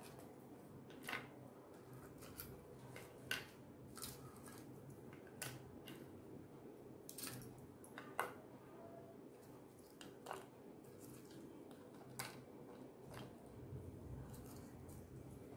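Crisp fried puris being picked out of a glass bowl and set down on a ceramic plate: faint, irregular light clicks and taps, about a dozen spread through the span.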